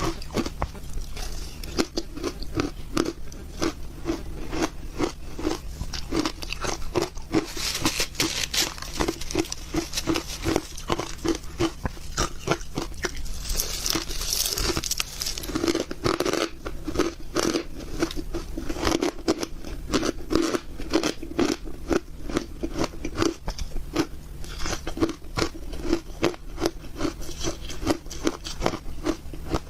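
Shaved ice being chewed and crunched close to the microphone: a steady run of crisp crunches with a chewing rhythm of about two bites a second.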